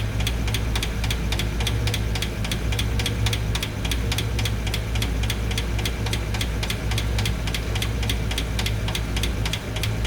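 V8 engine idling with a valve cover off, its valve train ticking in an even rhythm of about five ticks a second over the engine's steady hum. The ticking is the valve-train noise the owner traces to a hydraulic lifter, with a pushrod at that spot spinning wildly, which he says is not right.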